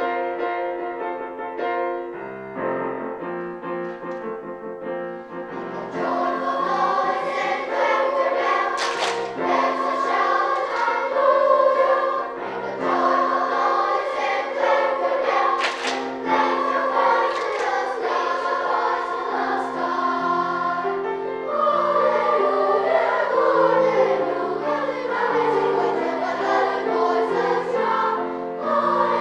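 Children's treble choir singing with piano accompaniment. It starts softly and grows fuller and louder about six seconds in, with two sharp hits a few seconds apart.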